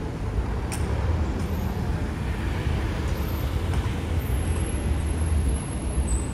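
City street traffic: cars driving past close by, with a steady low engine rumble.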